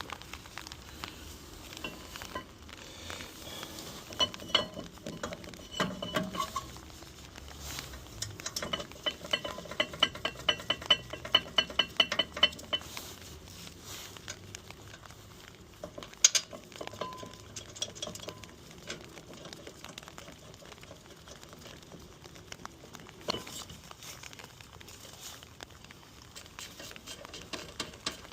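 Hand tools and steel brake parts clinking, tapping and scraping while a new rear brake disc is fitted, with a run of quick, even clicks around the middle.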